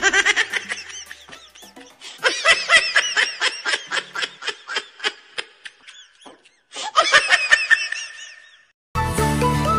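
Children laughing in quick repeated bursts, in three spells with short gaps between them. Music begins near the end.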